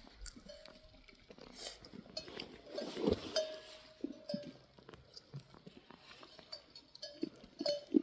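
Bells on a grazing flock of sheep and goats clinking and ringing irregularly as the animals move, with scattered knocks and a brief rustling swell about three seconds in.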